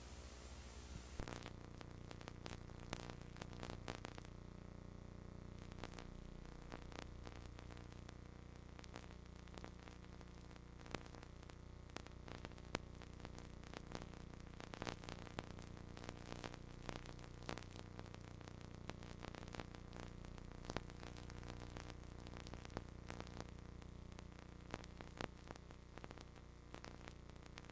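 Blank videotape audio track: low electrical hum with steady static and scattered crackling clicks throughout. A brighter hiss cuts off about a second in.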